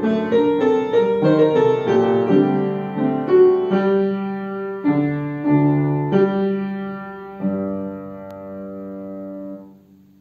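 Acoustic upright piano playing the closing bars of a piece: the notes come further apart, then a final chord is held for about two seconds and released, the sound stopping abruptly just before the end.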